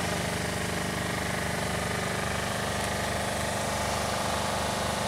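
Machinery running with a steady, even hum.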